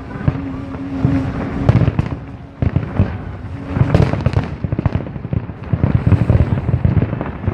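Fireworks display: a dense, continuous run of overlapping bangs and crackles, with a low rumble beneath.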